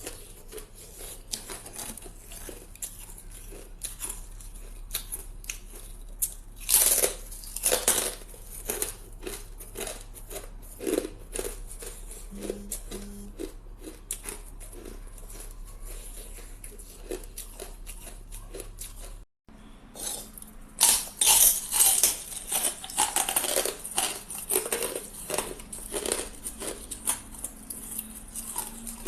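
Hard ice being bitten and chewed close to the microphone: a steady run of sharp, irregular crunches and cracks. There are louder bursts of crunching about seven seconds in and again shortly after a brief dropout about two-thirds of the way through.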